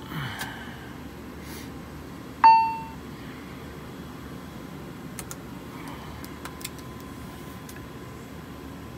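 A single cockpit chime rings about two and a half seconds in, sharp and fading within half a second, over the steady hum of the running APU. A few switch clicks follow a little past halfway, and a faint steady tone comes in soon after.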